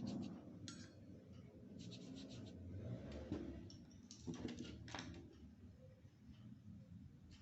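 Paintbrush strokes on paper, faint and scratchy, coming in several short spells of quick strokes with pauses between.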